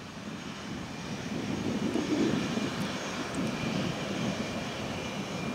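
Jet engines of a Boeing 737 MAX 8 airliner running as it rolls past on the runway: a rumble that swells to its loudest about two seconds in, with a steady high whine above it.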